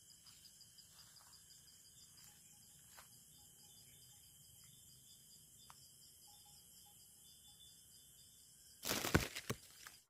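Night insects trilling steadily and faintly in several high pitches. Near the end, about a second of loud rustling and crackling as leafy branches are handled.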